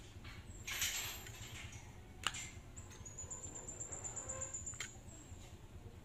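Hard plastic parts of a fruit slicer being handled and fitted together: a rustle about a second in, then one sharp click a little after two seconds and light ticks of plastic.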